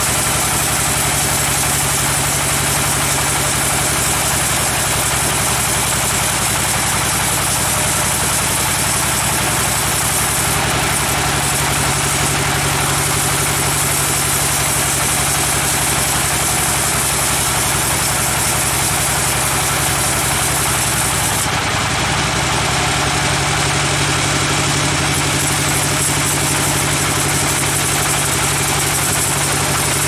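Band sawmill running, its vertical band-saw blade cutting lengthwise through a hardwood log: a loud, steady machine noise. The high hiss thins for a few seconds about two-thirds of the way through.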